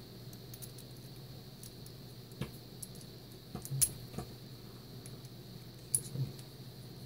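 Small metal clicks and taps as a Mul-T-Lock Interactive lock cylinder and a small steel tool are handled during disassembly, with a few sharper clicks a little before 4 s and around 6 s. A faint steady hum runs underneath.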